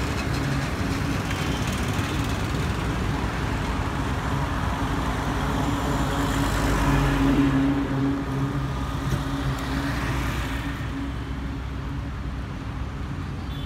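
Road traffic passing on a multi-lane road, with a steady engine drone. A goods truck passes close, loudest about seven seconds in, and the traffic noise then falls away near the end as the road empties.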